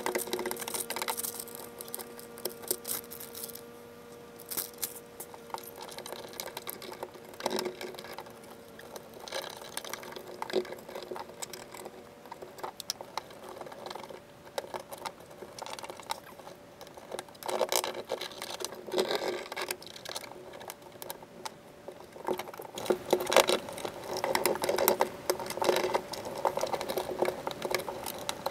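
Foil-faced Dynamat sound-deadening sheet handled and pressed down by hand onto a car floor pan: irregular crinkling, rustling and rubbing of the mat and its paper backing, busiest in the second half.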